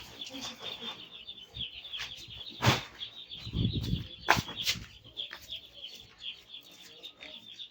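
Chickens chirping over and over in quick short calls, with two sharp knocks about two and a half and four seconds in.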